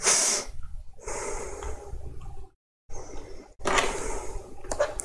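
Breath noise and hiss close to the microphone, in uneven bursts, broken by a short stretch of dead silence about two and a half seconds in.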